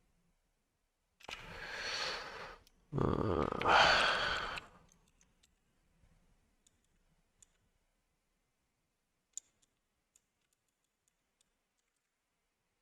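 A person breathes in, then lets out a loud, heavy sigh close to the microphone. A few faint, scattered clicks follow.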